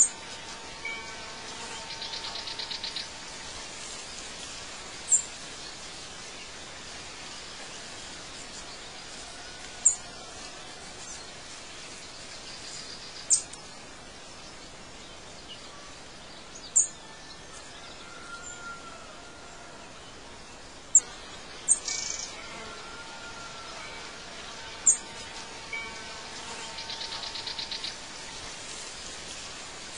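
Birdsong ambience: short, sharp high chirps every few seconds and a buzzy trill, over a steady background hiss. The same pattern comes round again near the end, as in a looped nature-sound track.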